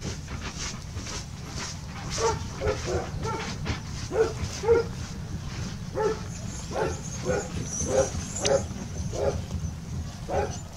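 Short animal calls repeated about twice a second, starting about two seconds in and stopping near the end, over a steady low rumble.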